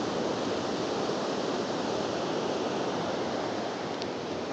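Steady rush of fast-flowing, flood-swollen creek water.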